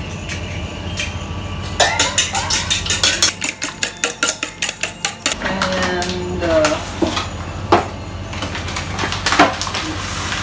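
A fork beating an egg in a bowl: a quick even run of clinks, about six a second, for a few seconds, then a few single clinks against the bowl.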